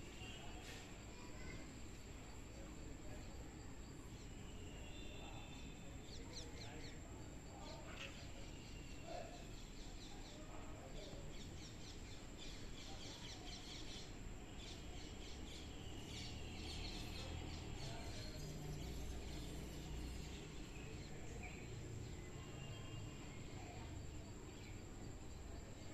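Outdoor ambience of birds chirping, busiest around the middle, over a low background rumble, with a steady thin high-pitched tone.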